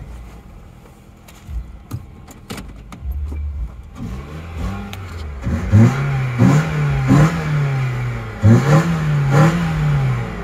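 A 2008 Nissan Sentra's four-cylinder engine, fitted with a cold air intake and with its catalytic converters removed, catches about four seconds in. It is then revved in about six quick throttle blips, each climbing sharply and falling back, right after a cold start.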